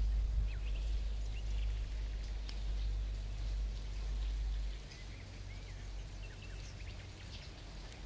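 Low rumble on the microphone that eases about five seconds in, with light clicks from the Victorinox Swiss Champ's tools being opened and handled, and short high chirps of small birds.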